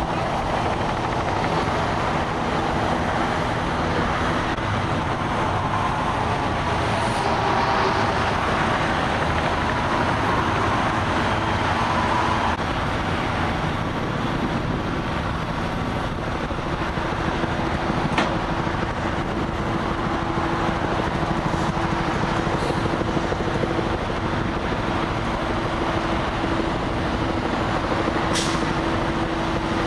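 Steady noise of heavy truck engines running, with a faint steady hum coming in about halfway and a few sharp clicks.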